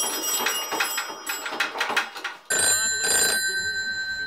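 A rapid rattle of clicks, then about two and a half seconds in an old black desk telephone starts ringing, its bell sounding in pulses.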